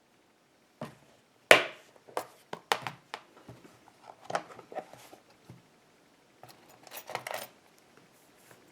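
Lock picking tools and a small cable bike lock being handled: a scattered series of sharp metal clicks and clinks, the loudest about a second and a half in.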